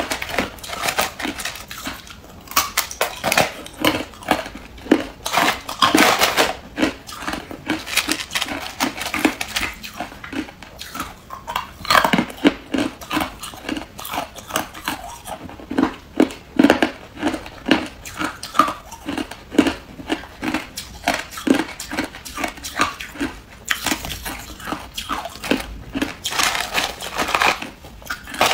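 A person biting and chewing hard clear ice close to the microphone: rapid, irregular crunches and cracks with no pause.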